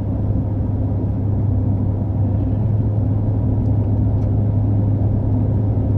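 Steady low road and engine rumble heard inside the cabin of a car driving along, with a constant deep hum.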